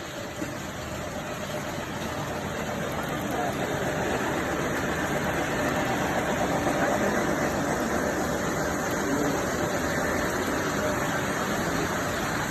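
Lionel model train running on its track, a steady rumble and rattle of wheels and motor that grows louder over the first half, then holds.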